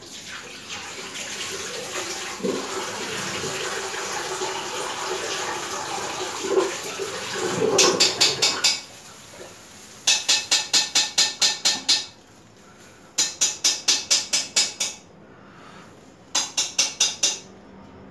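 Tap water running into a washbasin, stopping about nine seconds in. Then four short bursts of quick, even strokes, about five a second.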